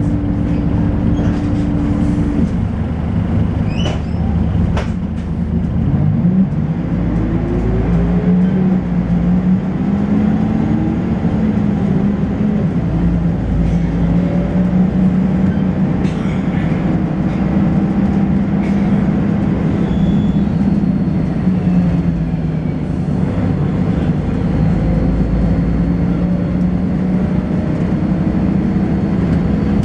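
Volvo B10BLE bus's diesel engine and ZF automatic gearbox heard on board while the bus is driving. The engine note climbs steeply about six seconds in, then settles and wavers as the bus drives on. A thin, high-pitched whine joins it about two-thirds of the way through.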